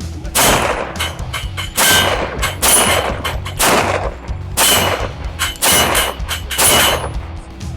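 Pistol shots fired in a string: about seven loud shots roughly a second apart, with fainter cracks in between.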